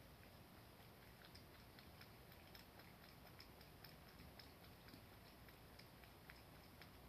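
Cat lapping water from a shallow dish: faint, quick ticks at about four to five a second.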